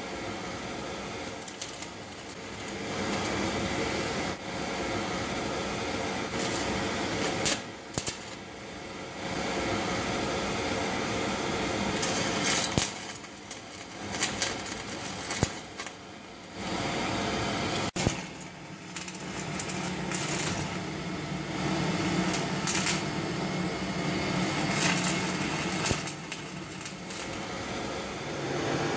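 Stick-welding arc powered by a homemade half-bridge resonant welding inverter: a steady crackling hiss with sharp pops, broken off and struck again several times, over a steady hum.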